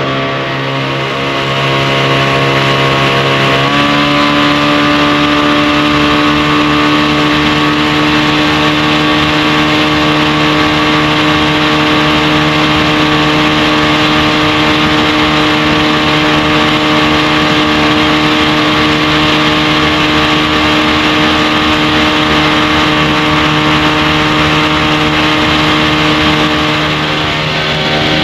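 1957 Kiekhaefer Mercury Mark 75 straight-six two-stroke outboard running hard under way. Its pitch climbs in two steps in the first four seconds, then holds steady at high revs, with a steady hiss of water underneath. The level dips briefly near the end.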